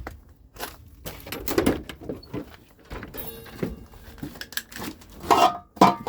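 Scattered knocks, clicks and rattles of tail light assemblies being handled and turned over, with a short pitched sound near the end.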